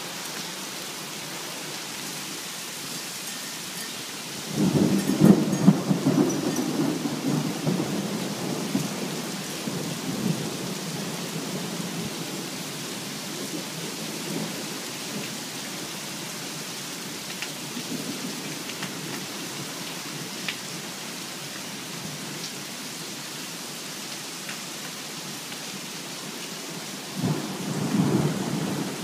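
Thunderstorm: steady heavy rain, with a loud peal of thunder about four seconds in that rumbles and fades over several seconds, and a second peal near the end.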